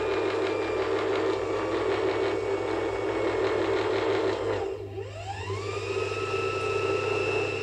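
A steady droning soundtrack with a low hum under it. About five seconds in it thins out for a moment, then a tone sweeps up and settles into a held high pitch.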